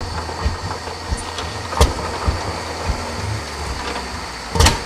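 1937 Landini tractor's single-cylinder hot-bulb engine idling, firing in slow, unevenly spaced thumps over a low rumble, with a stronger thump near the end.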